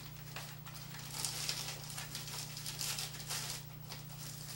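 Soft, irregular crinkling of plastic wrap being handled and folded around a square of baked egg, over a steady low hum.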